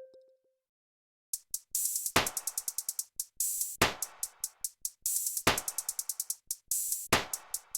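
Electronic drum-machine beat from a slowed-down ringtone track, starting a little over a second in. Quick hi-hat ticks run throughout, with a heavy kick and snare hit about every second and a half.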